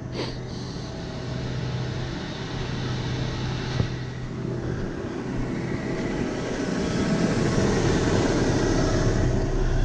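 Tractor engine running steadily with its hydraulics engaged to work the baler, a rushing noise building up over the second half. A single sharp click about 4 s in.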